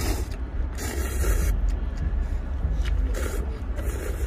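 Instant ramen noodles being slurped in several short, hissy sucking bursts, over a steady low rumble.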